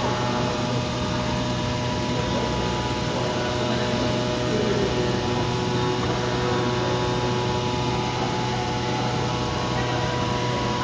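CNC oscillating-knife fabric cutting machine running: a steady mechanical hum with several constant whining tones, at an even level.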